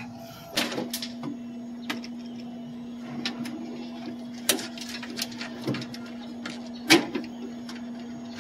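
Scattered clicks, rattles and knocks of wiring and metal parts being handled inside a drink vending machine during disassembly, the loudest knock about seven seconds in. A steady low hum runs underneath.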